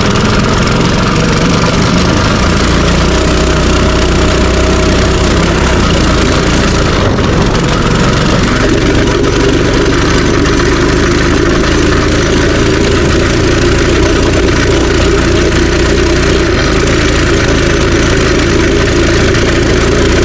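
Minibike's small engine running as it is ridden, loud and steady, its pitch shifting a couple of times.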